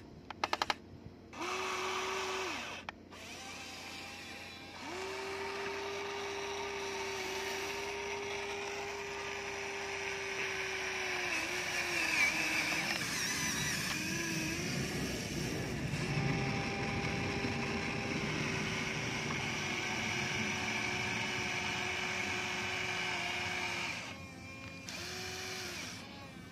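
Electric motors and gears of a Huina radio-controlled toy excavator whining in several long stretches, each a steady tone that starts and stops as the boom and bucket move. About halfway through, stones rattle and scrape as the bucket digs.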